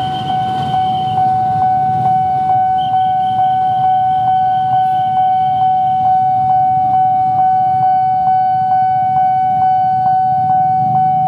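Nippon Signal electronic level-crossing alarm ringing: a steady high tone with a repeated ding about twice a second, over a low rumble.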